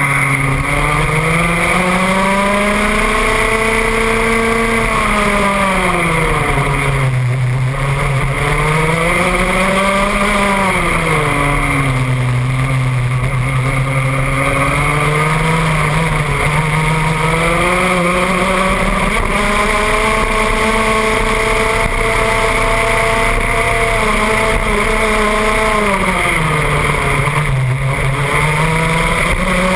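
IAME X30 125cc single-cylinder two-stroke kart engine under load through a lap, heard onboard the kart. Its pitch climbs along the straights and drops into the corners, with dips at about 7 and 12 seconds in and again near the end, and a steady rushing noise underneath.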